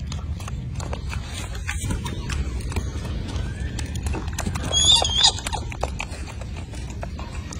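A golden snub-nosed monkey gives a short, high-pitched squeak about five seconds in, the loudest sound, over a steady low rumble and scattered light clicks.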